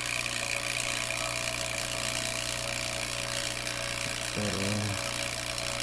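Electric motor running steadily, a constant hum with a hiss over it.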